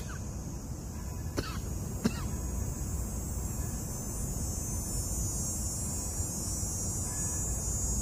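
A steady high-pitched insect chorus hissing over low wind rumble on the microphone, growing slightly stronger in the second half. A person makes two brief cough-like throat sounds about one and a half and two seconds in.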